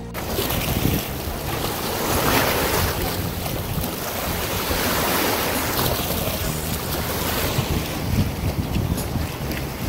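Wind blowing across the microphone: a steady rushing noise with low buffeting that swells and eases in gusts.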